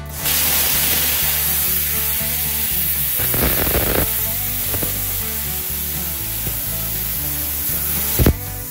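BestArc BTC500DP plasma cutter's arc and air jet cutting into rusty 3/8-inch steel plate at 30 amps on 110 volts, a steady loud hiss for about eight seconds. It is barely making it through the thick plate. It stops with a sharp pop near the end.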